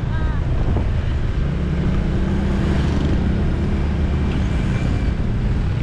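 Honda ADV160 scooter's single-cylinder engine running steadily at riding speed, with a low rumble of road noise.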